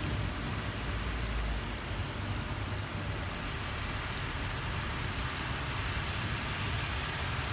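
Steady hiss of rain, with the low rumble of thunder dying away over the first second and a half.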